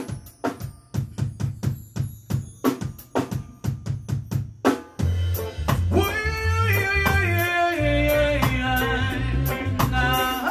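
Live band starting a slow song: a steady drum beat alone for about five seconds, then bass and melody instruments come in with held, gliding notes over the beat.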